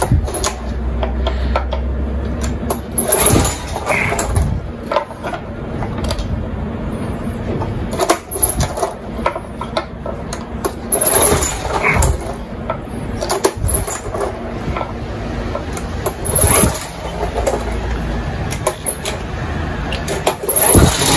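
Honda Komame F220 mini-cultivator being pull-started by its recoil starter: several hard pulls a few seconds apart, each a quick whir of the rope as the engine turns over without catching after a carburetor replacement.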